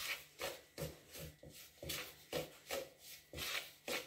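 A spoon scraping and stirring stiff tart dough around a plastic mixing bowl, in short, even strokes about two a second.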